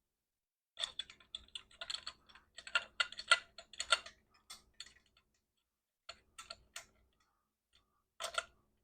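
Small metal parts clicking and clinking by hand as a banjo bolt with crush washers is fitted through a bracket onto the oil line. There is a dense run of irregular clicks for the first few seconds, then scattered clicks, and a short cluster near the end.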